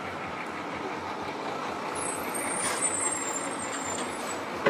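City street traffic with a large bus passing close, a steady road noise. A thin, high-pitched squeal sounds for about two seconds midway.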